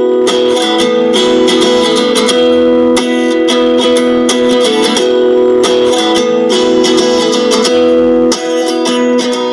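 Background music: a strummed guitar piece with a steady rhythm.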